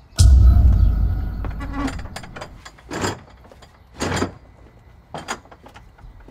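A loud bang with a deep boom and faint ringing that dies away over about a second and a half, followed by four softer scuffing steps about a second apart.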